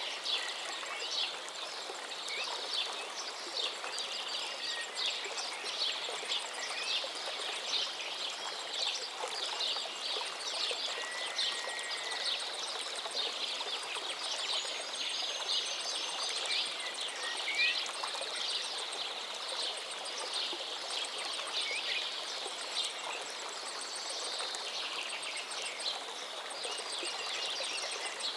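Oil sizzling and crackling steadily in a cooking pan, with dense, continuous spitting.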